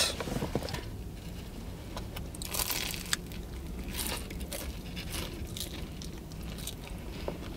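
People biting into and chewing flaky pastries, a chocolate croissant and a strawberry Nutella pastry: scattered crisp crunches of the flaky crust, the loudest a little under halfway through.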